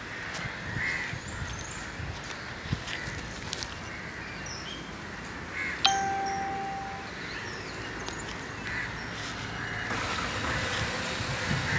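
Outdoor street ambience with crows cawing and small birds chirping. About six seconds in, a single metallic ding rings out clearly and fades over about a second. Near the end a rushing noise swells.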